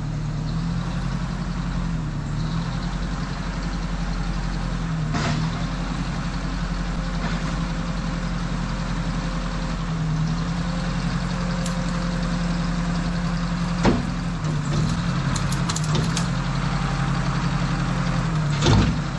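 Two-wheel-drive tractor engine running steadily at a low, even pitch, with a few sharp knocks, the loudest about two-thirds of the way in and another near the end.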